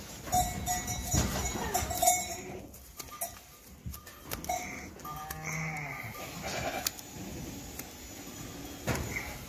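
Sheep bleating several times, mixed with short sharp clicks of hand-held hoof shears snipping a sheep's overgrown hoof.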